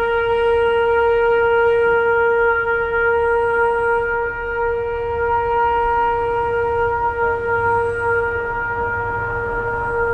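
A wind instrument holds one long, steady note for nearly ten seconds, then cuts off near the end.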